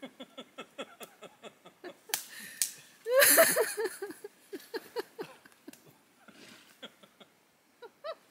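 Brush and dead branches crackling and crashing underfoot on a logged slope, loudest in a sudden burst about three seconds in. Over it runs a string of short, high whining cries, quick and even at first and then scattered.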